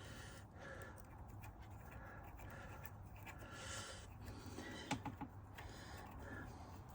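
Faint scraping and a few light clicks as a countersunk screw is turned in with an Allen key, fastening a steel disc to a small metal part, with one sharper click about five seconds in.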